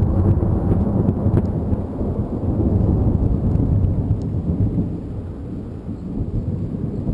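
Thunder rumbling after a lightning flash. It swells just before the start and slowly dies away. A thin, steady high whine sounds above it.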